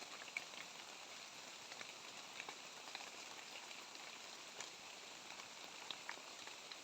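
Light rain falling steadily in forest, with scattered drops ticking on leaves.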